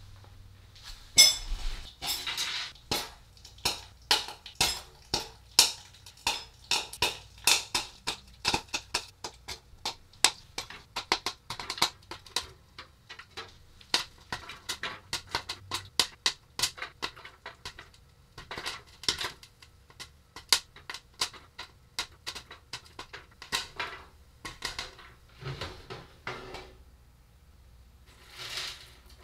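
Popcorn popping in the stainless-steel kettle of a 1950s Corn Pop-O-Mat electric popcorn maker: sharp irregular pops with kernels clinking against the metal, coming thick and fast at first, then thinning out.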